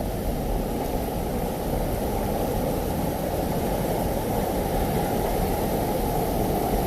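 Waterfall on Fossil Creek: a low, steady rush of falling water.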